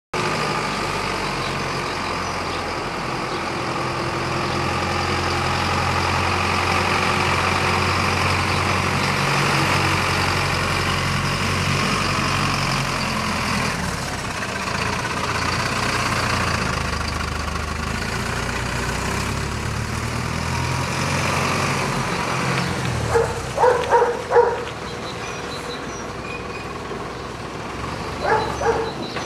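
Mercedes-Benz 1217 diesel truck engine running as the truck drives up, passes close by and pulls away, its sound falling off after about twenty seconds. Near the end a dog barks in two quick runs.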